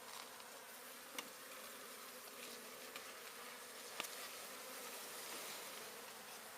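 A swarm of honey bees buzzing around an opened hive: a steady, fairly quiet hum, with a couple of faint clicks about a second and four seconds in.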